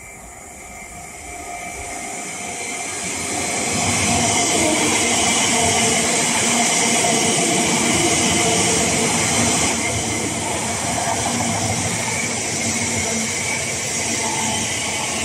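Electric multiple-unit passenger train approaching and running past along the platform. Its rolling noise and hiss grow over the first four seconds, then hold steady as the carriages go by.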